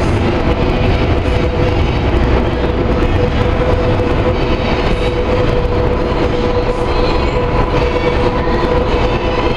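MCL 80 metro train pulling out of the station into the tunnel: a steady rumble of running noise with a steady whine, which a second, higher whine joins about two-thirds of the way through.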